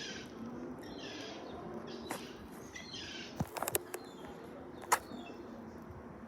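A faint, low, drawn-out droning rumble of the kind reported as a strange sound coming from the sky, with a few sharp clicks and patches of hiss over it.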